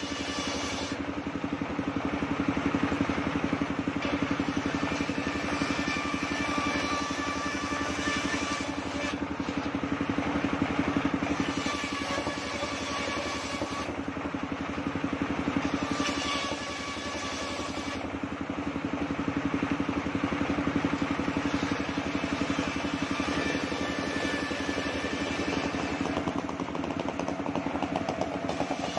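Engine-driven circular sawmill running steadily with a low hum as its large blade rips waru-wood boards lengthwise. The cutting noise swells and fades several times as planks are fed through.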